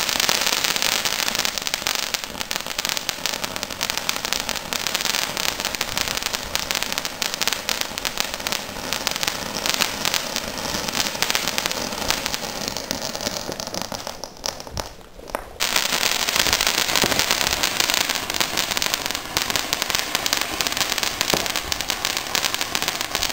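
Ground fountain fireworks spraying sparks with a continuous dense crackling hiss. About fourteen seconds in the hiss dies down, and a second and a half later it comes back suddenly, louder.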